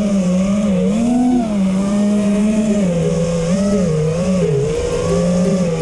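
FPV racing quadcopter's motors and propellers whining in flight, the pitch rising and falling as the throttle changes.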